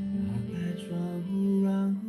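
A recorded song playing through a Newmine portable Bluetooth speaker: a slow melody of held notes over accompaniment.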